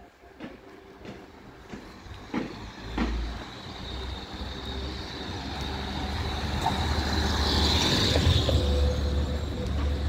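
A car driving past on the street, growing louder to a peak about eight seconds in and then easing off.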